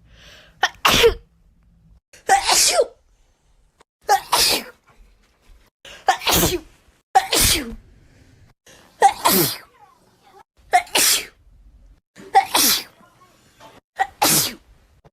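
A person sneezing nine times in a row, one wet sneeze every second or two, each a sharp burst whose pitch falls away.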